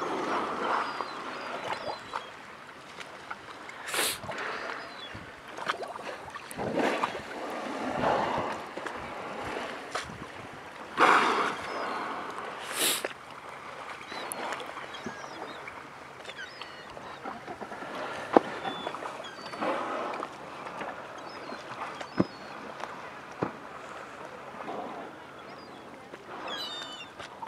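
Water lapping against an inflatable Zodiac boat, broken by a few loud, short whooshes of killer whales blowing as they surface, the loudest about eleven seconds in. Faint, short high calls of seabirds come through now and then.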